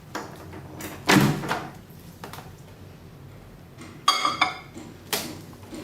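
Microwave oven door shut with a thunk, then a short run of beeps from the keypad as it is set, and another knock near the end.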